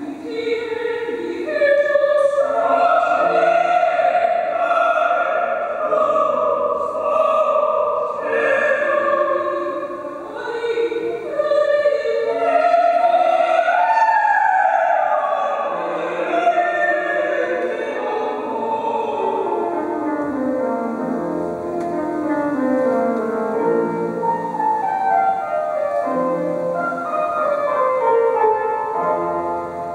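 Opera singers singing with keyboard accompaniment; the voices stop about two-thirds of the way through and the keyboard goes on alone in repeated falling runs.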